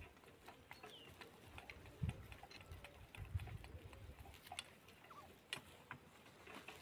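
Flock of domestic turkeys foraging: scattered, irregular pecking clicks on dry ground, with a few short soft calls and some low thumps.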